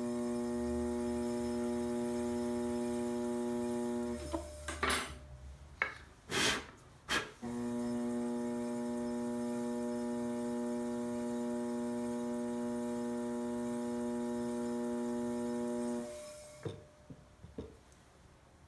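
Electric pottery wheel motor running with a steady hum, cutting out about four seconds in and starting again a few seconds later, then stopping near the end. In the pause come a few short noisy bursts, and after the wheel stops a few soft knocks.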